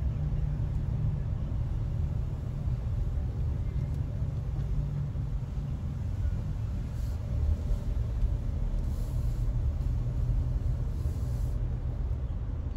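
Car driving on the road: a steady low rumble of road and engine noise.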